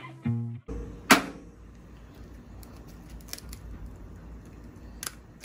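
An egg knocked once against the rim of a frying pan, a single sharp crack about a second in. A few faint clicks of the shell being handled follow, over a low steady room hum.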